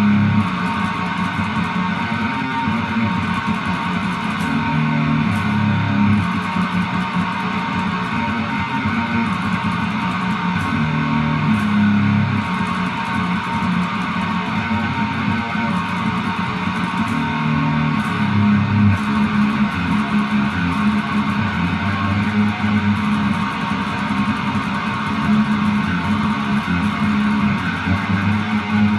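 Background music led by guitar, with a bass line moving in steady steps.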